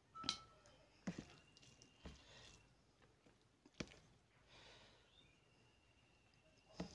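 Faint, close-up eating sounds: chewing and wet mouth smacks with about half a dozen sharp, irregular clicks, while rice and fish head curry are mixed and eaten by hand from a steel plate.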